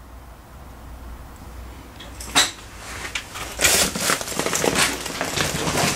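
Handling noise: a sharp click about two seconds in, then a run of irregular rustling, clattering and knocking that lasts until the sound cuts off.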